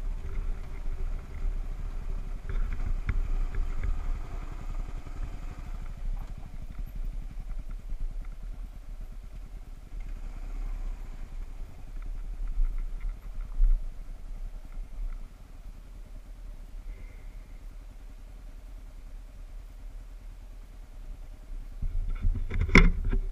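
Kawasaki KLR 650 single-cylinder engine running steadily as the bike rides a rocky dirt track. A short cluster of loud knocks comes near the end.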